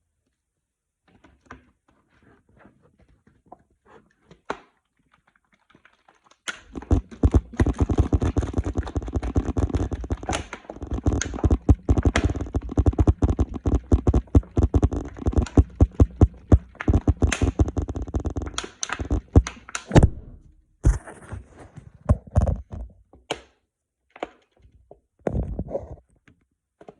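A bottle of glue, water and slime activator shaken hard, the thickening mixture thudding about inside. The rapid thuds start several seconds in and run for about thirteen seconds, then give way to a few scattered knocks.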